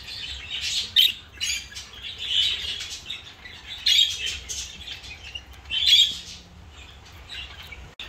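Budgerigars chirping in a run of short, high calls, dying down over the last second or two.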